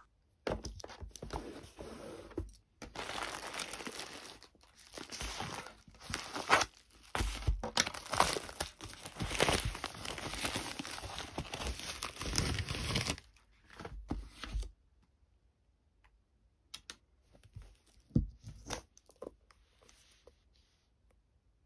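Packaging being handled: dense crinkling and tearing for most of the first fourteen seconds, then a few scattered crackles.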